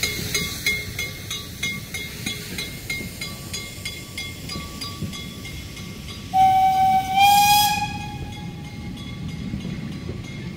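Narrow-gauge train coaches rolling past, their wheels clicking evenly on the track about four times a second. About six seconds in, the Saxon IV K steam locomotive's whistle sounds once for about a second and a half, rising slightly in pitch and ending with a hiss of steam.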